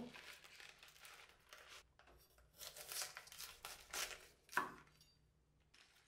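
A kitchen knife crunching through the crisp root end of a head of bomdong (Korean spring cabbage) on a wooden cutting board. The leaves rustle and crackle as they are handled and pulled apart. There is a light knock at the very start, and the sharpest, loudest cut comes about four and a half seconds in.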